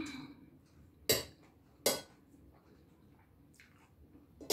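Metal cutlery clinking against a ceramic plate while eating: two sharp clinks about one and two seconds in, then a softer one near the end.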